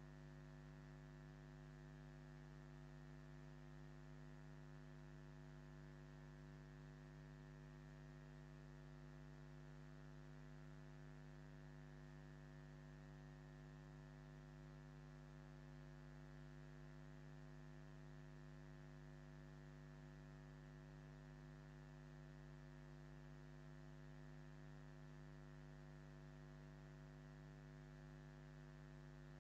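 Faint, steady electrical mains hum with a row of even overtones, unchanging throughout: electrical interference in the webcam's audio feed, with no other sound.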